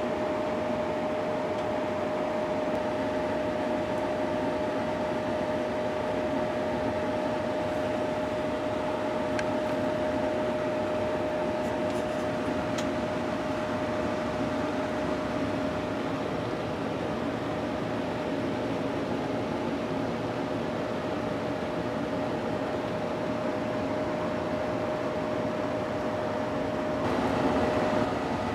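Paint booth's Dayton exhaust blower running steadily: a constant rush of air with a steady whine over it.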